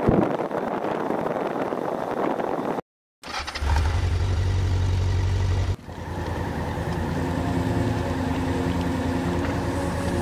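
Honda CRF1000L Africa Twin motorcycle: first its engine under the rush of riding wind, then, after a brief dropout about three seconds in, the engine running with a steady low hum, and after another cut near six seconds a steadier engine drone.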